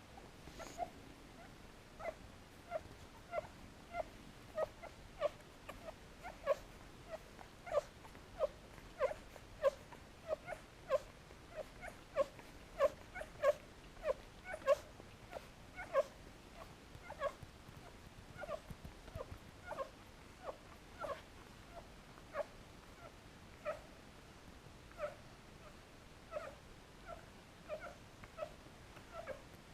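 Nursing puppies giving short, high whimpering squeaks, about one or two a second, most frequent in the middle and thinning out toward the end.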